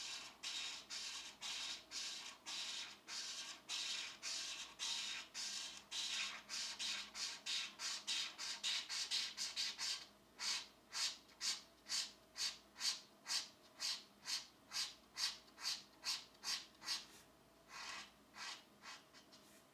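Colored pencil shading back and forth on coloring-book paper in rhythmic scratchy strokes. Fast and run together for the first half, then slower, separate strokes about two and a half a second, easing off near the end.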